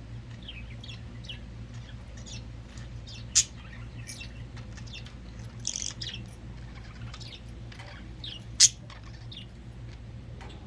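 Pet budgerigars chirping and chattering in short, high calls throughout, with two sharp, much louder sounds about five seconds apart.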